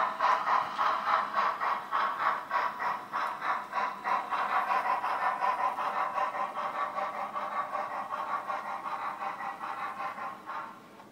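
Sound decoder of a Broadway Limited HO-scale USRA light Mikado (2-8-2) steam locomotive playing steady steam exhaust chuffs, about four a second, through its small onboard speaker. The chuffs fade and cut off near the end as the locomotive stalls on a dirty section of track.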